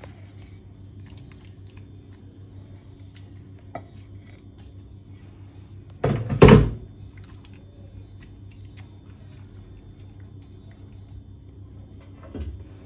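A low steady hum with one loud, short thunk about six seconds in and a softer knock near the end, kitchenware being handled on a stone counter.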